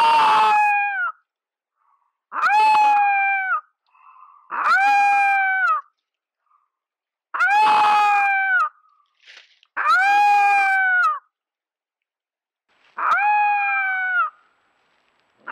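Four-week-old wolf cub's first attempts at howling: six short, high-pitched howls, each about a second long, that hold their pitch and then drop at the end. They come every two to three seconds.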